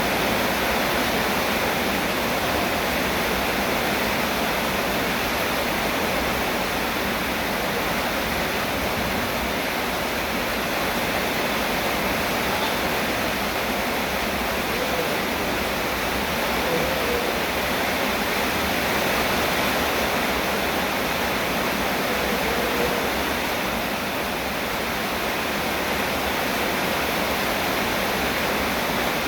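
Steady, even rainfall.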